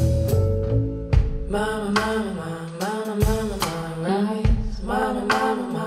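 A blues-gospel song played back through a GATO AMP-150 solid-state integrated amplifier and loudspeakers, picked up by a stereo microphone in the room. Low held notes come first; about a second and a half in, a sung vocal line with a wavering pitch enters over sharp percussive hits.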